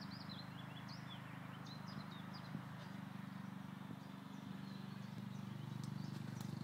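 Small lawnmower engine running steadily with a fast, even beat. Songbirds chirp over it in the first three seconds.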